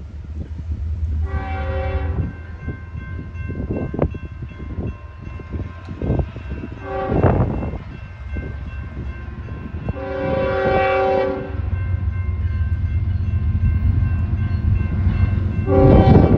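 Air horn of a Union Pacific GE ET44AC (C45ACCTE) freight locomotive, sounded in four separate blasts as the train approaches a grade crossing; the third blast is the longest, about a second and a half. The low rumble of the diesel locomotives grows louder over the last few seconds as the train nears.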